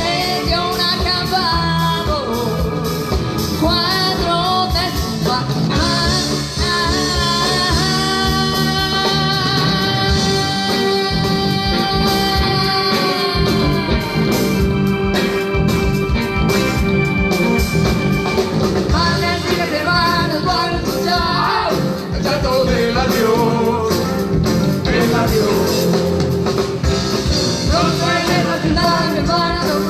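Live rock band playing with drums and a lead singer; a long note is held steady about eight seconds in and eases off around the fourteen-second mark.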